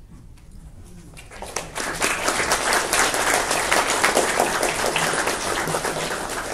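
Audience applauding: the clapping starts about a second in, swells quickly, and tapers off near the end.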